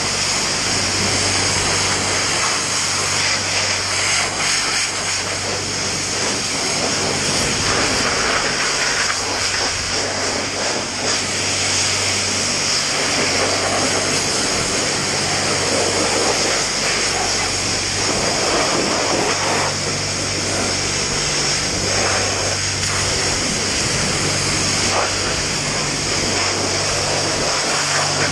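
Self-service car wash high-pressure lance spraying foam onto a KTM dirt bike: a loud, steady hiss of spray over a low, steady hum.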